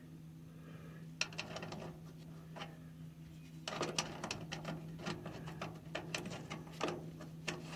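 Faint metallic clicks and rattles of bolts, nuts and a wrench being handled while fitting bearing-mount bolts on a haybine's crimper drive. The clicks are sparse at first and come thicker from about halfway on, over a steady low hum.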